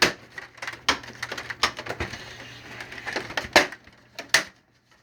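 Sharp plastic clicks and snaps with scraping in between as the HP M402 laser printer's left side panel is pried off its clips, about half a dozen clicks, the loudest about three and a half seconds in.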